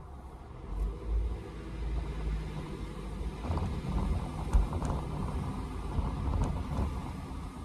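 Car cabin road noise while driving: a steady low rumble of tyres on wet, slushy pavement, with a few light knocks in the second half.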